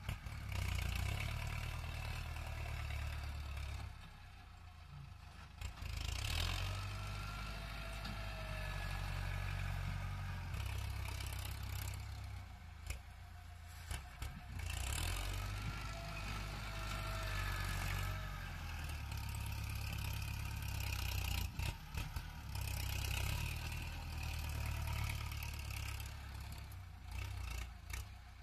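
Farm tractor's diesel engine working hard as it pushes and levels soil with its blade. The engine note swells and eases over stretches of a few seconds.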